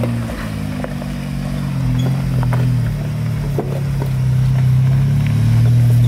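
Chevrolet Colorado ZR2 pickup's engine running at low revs as the truck crawls over rock, a steady drone that rises a little in the second half. Scattered sharp clicks and crunches come from the tyres on the rock.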